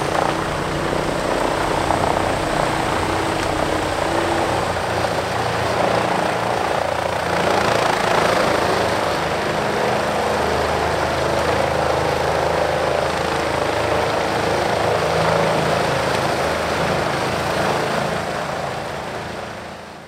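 Bandit whole tree chipper running under load as pine limbs and brush are fed into its infeed: a steady engine drone mixed with the rushing noise of wood being chipped. The sound shifts about seven seconds in and fades out at the end.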